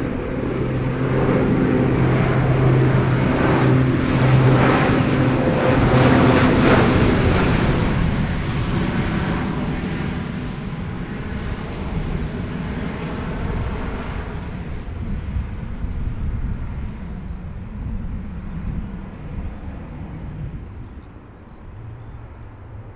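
Lockheed C-130J Super Hercules' four Rolls-Royce AE 2100D3 turboprops and six-bladed propellers, a steady low propeller drone as the aircraft passes low overhead. The drone is loudest about six seconds in, then fades and drops slightly in pitch as the aircraft flies away.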